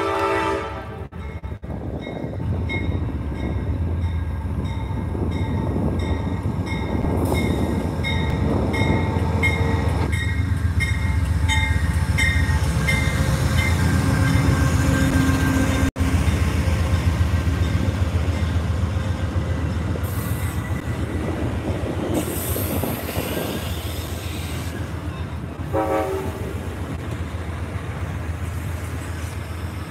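Amtrak passenger train arriving: the horn chord cuts off about a second in, then a bell rings with a stroke roughly every half second for about ten seconds while the locomotive and double-deck Superliner cars rumble past. Later there is a brief high hiss and squeal as the train slows, and a short tone near the end.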